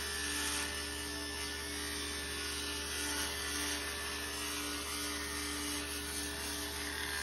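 Table saw ripping a long wooden board to width, the blade's steady cutting noise over the low hum of the running machine. The cutting noise drops away about seven seconds in as the cut ends, leaving the hum.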